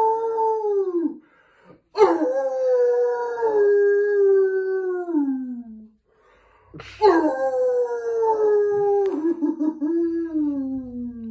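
A man howling in imitation of a dog: three long howls, each held on one pitch and then sliding down at the end. The first ends about a second in, and the third starts sharply at about seven seconds.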